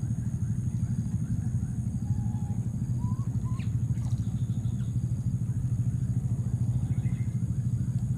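A small engine running steadily, a low rumble with a fast, even pulse. A few faint short chirps sound over it.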